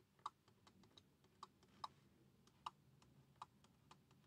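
Faint, irregular clicks of a stylus tapping a tablet screen while handwriting, about one or two a second.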